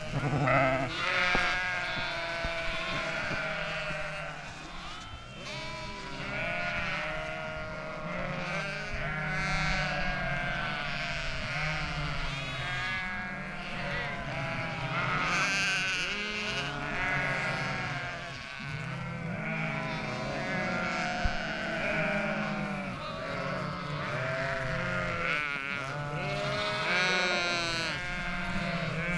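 A large flock of sheep bleating, with many calls of different pitches overlapping continuously.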